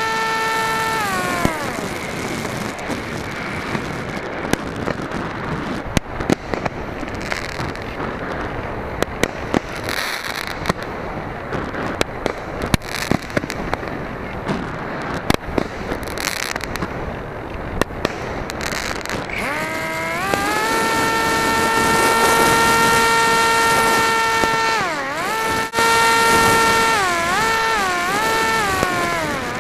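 Onboard sound of an RC flying wing. Its motor and propeller whine at a steady pitch, then the pitch falls away about a second in as the throttle comes off. Rushing air follows, with a rapid string of firework pops and crackles as it passes through the fireworks. About twenty seconds in the whine climbs back and holds, dipping in pitch a few times near the end.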